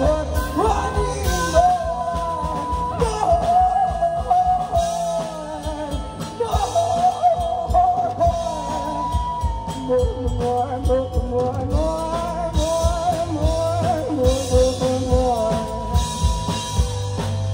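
A live band playing through an outdoor PA: women singing a melody over drums and bass.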